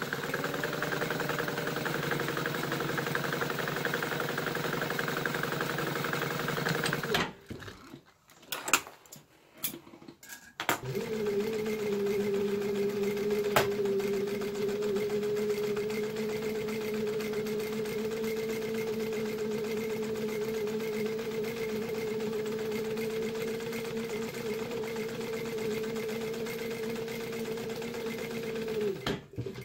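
Sewing machine stitching seat-cover pieces in two long steady runs. The first lasts about seven seconds and is followed by a pause of about three seconds with a few clicks and knocks. The second runs evenly for about eighteen seconds and stops just before the end.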